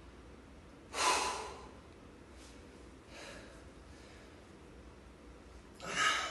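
A man's forceful breaths out with the effort of lifting a dumbbell: two loud exhales, about a second in and again near the end, with fainter breaths between.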